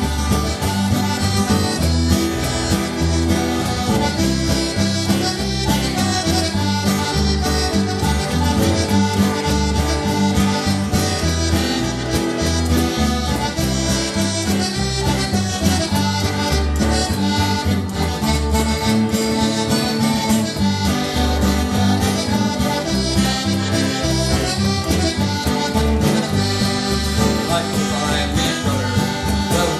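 Live band playing an upbeat tune, the button accordion prominent over strummed acoustic guitar, electric bass and cajon.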